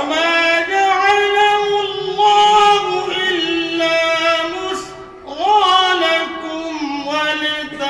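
A man reciting the Quran in the melodic qirat style, his voice held in long, high, ornamented notes. He pauses briefly about five seconds in, then goes on.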